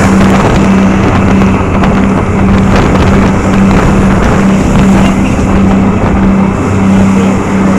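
Jet boat engine running at speed, a steady hum that pulses regularly, under a loud rush of wind over the microphone.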